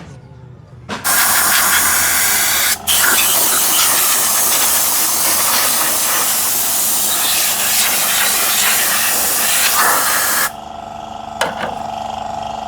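Compressed air blowing from a workshop air gun, a loud steady hiss of about nine seconds that breaks off for a moment near three seconds in and stops sharply.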